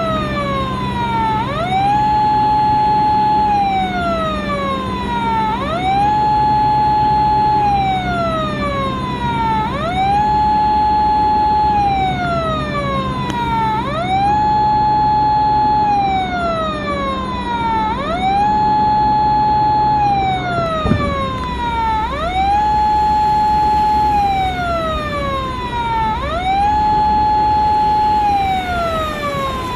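Police car siren in a slow wail: the tone rises quickly, holds, then slides slowly down, repeating about every four seconds over a low steady hum. A single knock comes about two-thirds of the way through.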